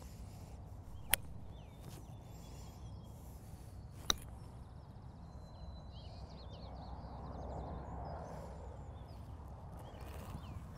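A 7-iron striking a golf ball on short chip shots: two sharp clicks about three seconds apart, with birds singing in the background.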